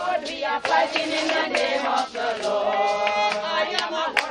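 A group of people singing together, their voices holding and sliding between notes.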